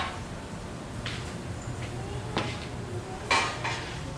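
Kitchen cookware and utensils being handled during a stir fry: a few light knocks about a second apart, then a louder clatter near the end, over a steady low hum.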